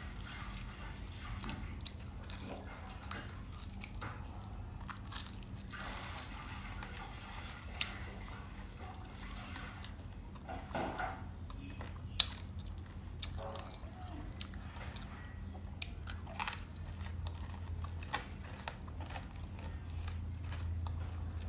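Close-up eating sounds: a person biting and chewing crunchy food, with irregular crisp crunches and a few sharp clicks, the sharpest about twelve seconds in, over a steady low hum.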